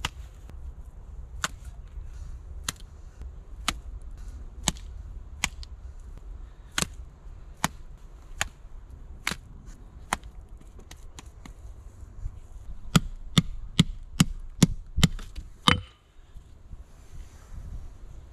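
A hatchet knocks wooden stakes into the ground in sharp, woody blows. They come about once a second at first, then there is a quicker run of about a dozen hits that stops about sixteen seconds in.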